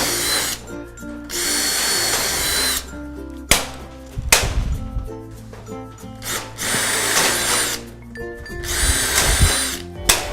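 Power drill running in short runs of a second or so, drilling and driving screws into the metal top channel of a shed frame, with a few sharp clicks between runs. Background music plays underneath.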